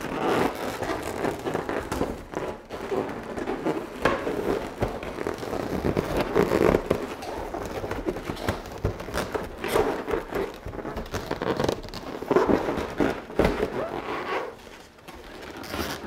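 Inflated latex balloons squeaking and rubbing against each other as they are handled and pressed into a balloon column, an irregular, unbroken run of short squeaks and rubs.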